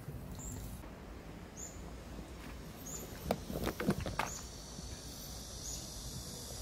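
A short, high chirp repeating about once a second over a low outdoor background hum, with a few light clicks and knocks about halfway through.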